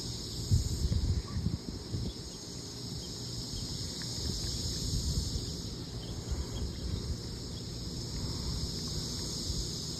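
A steady, high-pitched insect chorus, with low rumbling on the microphone that is strongest about a second in.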